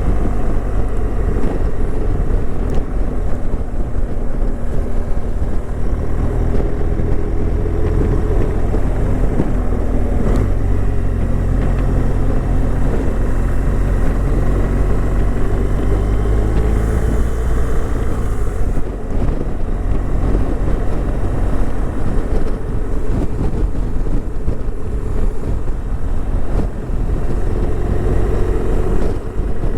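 Car engine and road noise while driving, a steady low rumble whose engine note rises and falls gently with changes in speed.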